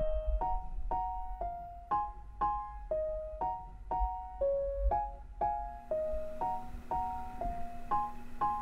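Background music: a light keyboard melody of separate notes struck about twice a second, with a low held note joining in the second half.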